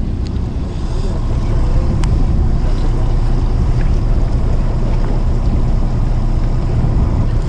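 Wind rushing over the microphone on a fishing boat at sea, over a low, steady drone of the boat's engine.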